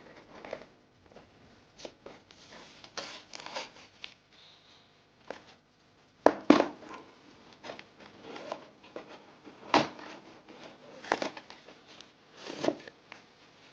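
Packaging of a boxed keyboard being handled and opened: irregular rustles, scrapes and sharp knocks every second or two, with the loudest knocks around the middle and near the end.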